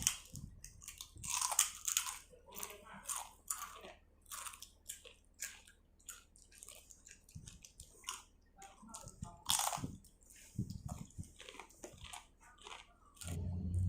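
Close-up eating sounds of a person biting and chewing spicy seafood papaya salad: a run of short, irregular crunches and wet chews. A low steady hum comes in near the end.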